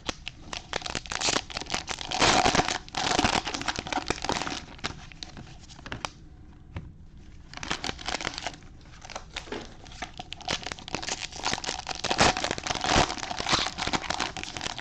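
Trading card pack wrappers being torn open and crumpled, with crinkling plastic and light clicks of cards being handled, dying down briefly midway.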